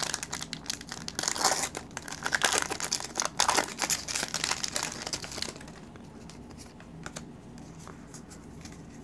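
Foil wrapper of a Pokémon trading card booster pack being torn open and crinkled in the hands, dense crackling that dies down after about five and a half seconds.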